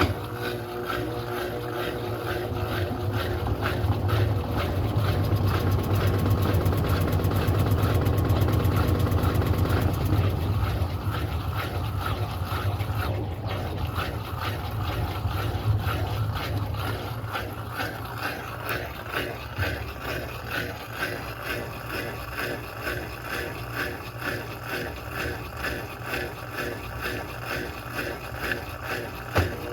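Electrolux Turbo Economia LTD06 top-load washing machine running: a low motor hum that swells over the first ten seconds, then settles into a regular pulsing, a bit more than one beat a second.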